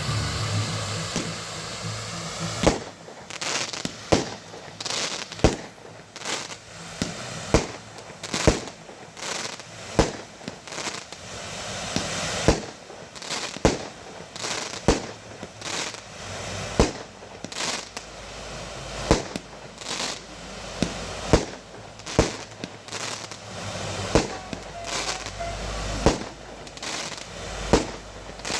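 Fireworks going off: a long run of sharp bangs, roughly one to two a second, with crackling between them.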